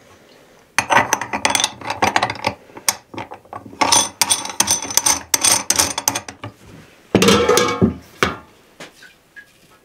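Metal parts of a hand-cranked meat grinder clinking and rattling as it is assembled with a sausage-stuffing tube, in two runs of quick clicks. About seven seconds in comes a heavier thump.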